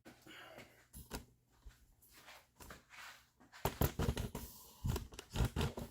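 Irregular clicks, knocks and scraping of hand tools against the plastic housing of an electric pressure washer being taken apart, louder and busier from about halfway through.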